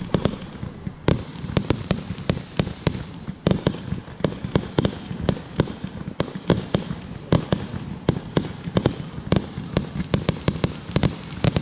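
Fireworks going off in quick, irregular succession: a steady run of sharp bangs and pops, about four a second, from aerial bursts in the sky.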